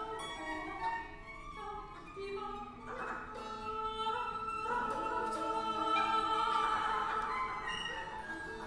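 Freely improvised contemporary music for voices, cello, kannel and piano: long sung tones over bowed cello, with a long held high note in the middle that swells louder.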